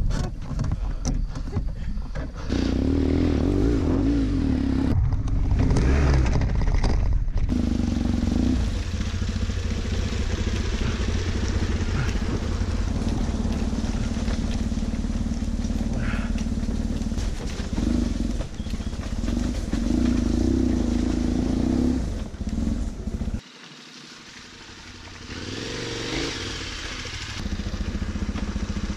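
Motorcycle engine running while riding off-road, its note rising and falling with the throttle. About two-thirds of the way through it suddenly goes much quieter, then builds back up over a few seconds.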